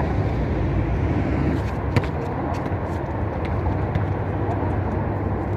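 Outdoor court ambience with a steady low rumble, and now and then a sharp knock from a basketball bouncing on the concrete court; the loudest knock comes about two seconds in.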